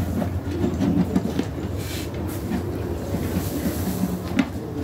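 Plastic manure fork scooping and shaking through wood-shavings bedding, with a few short scrapes and knocks. A steady low mechanical hum runs underneath.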